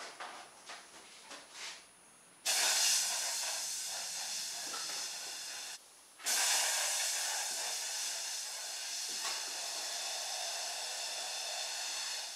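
Air rushing out of a balloon through the bent drinking-straw jets of a homemade balloon-powered helicopter: a loud hiss starting about two seconds in and stopping after about three seconds, then starting again half a second later and running on for about six seconds, slowly fading as the balloon empties.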